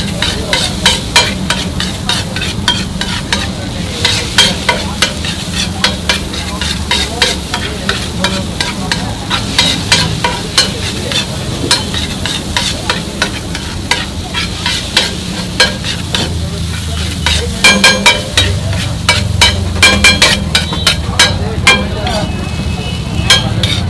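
Steel spatula scraping and clattering on a large flat iron griddle as shredded egg atho noodles are stir-fried, several strikes a second over a steady low hum. A little past the middle comes a run of louder, ringing clangs.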